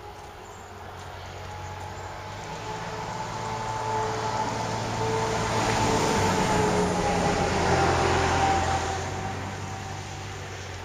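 A road vehicle passing by, its engine hum and tyre noise building to a peak about six to eight seconds in and then fading away.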